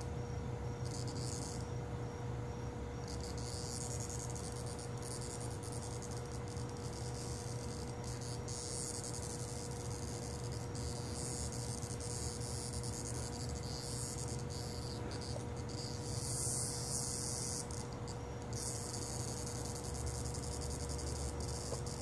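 Insects calling in high-pitched, buzzing stretches of a few seconds each that start and stop again and again, over a low steady hum.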